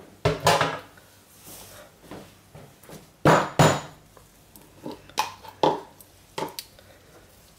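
Soap-making utensils clattering on a kitchen counter: a metal spoon and tools knocking against cups and the worktop in a string of separate knocks. The two loudest come about a third of a second in and about three seconds in, followed by several lighter clicks.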